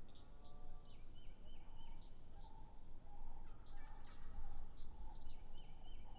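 Osceola wild turkey gobbler gobbling, a rattling call loudest in the second half, with small birds chirping in high, repeated down-slurred notes.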